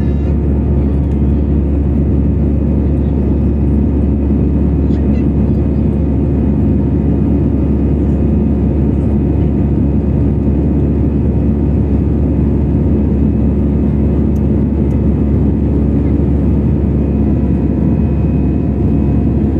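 Steady, loud drone inside a jet airliner's cabin, from the engines and airflow at climb or cruise power. It holds even throughout, with a low rumble and a few faint steady tones on top.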